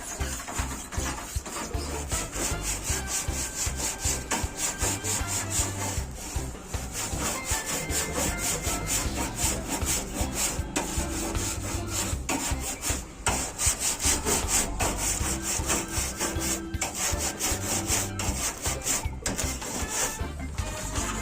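Rapid rhythmic scraping or scrubbing strokes, several a second, with a low pulsing hum underneath.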